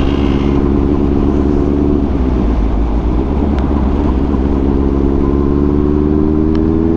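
Motorcycle engine running under way, steady at first, then rising slowly in pitch from about four and a half seconds in as the bike accelerates, over a steady low rumble of wind and road noise.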